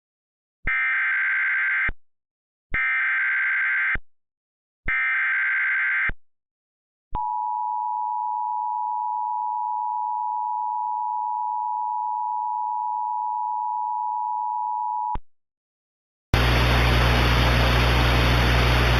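Emergency Alert System tones: three short bursts of buzzing, warbling data screech (the SAME header), each about a second long, then the steady two-tone EAS attention signal held for about eight seconds before cutting off. About a second later a loud steady rush of noise with a low hum starts.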